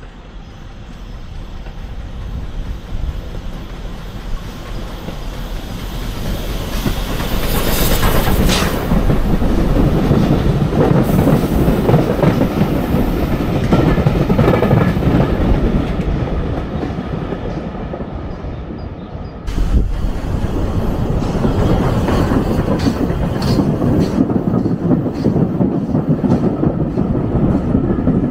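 Heritage train approaching and passing directly beneath the bridge: a rumble that grows louder as it nears, then the steady running of the carriages with the clickety-clack of wheels over rail joints. The sound jumps abruptly louder about two-thirds of the way through, then continues with regular clicks.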